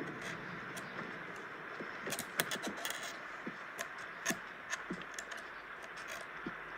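Quiet room tone: a low steady hiss with a scattering of soft clicks and taps, most of them in the middle stretch.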